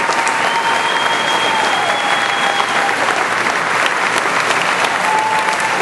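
Crowd applauding steadily in a gymnasium: continuous dense clapping, with a few thin, held high tones that come and go over it.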